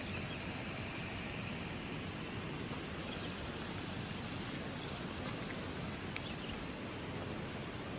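Steady road and engine noise of a vehicle driving.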